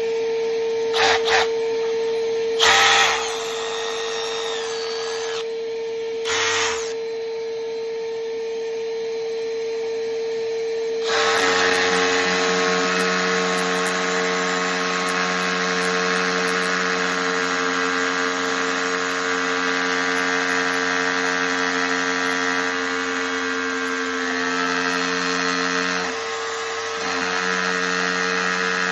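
12-volt cordless rotary hammers drilling into concrete: a steady motor whine with short bursts of hammering at first. About eleven seconds in, a louder, denser hammer-drilling sound takes over and continues, easing off briefly near the end.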